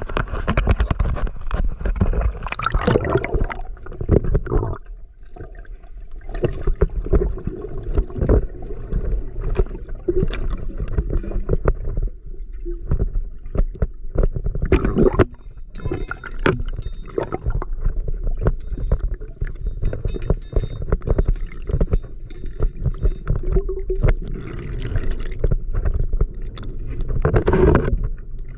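Muffled gurgling and bubbling of river water heard underwater during a dive, with many irregular knocks and thumps over a low rumble.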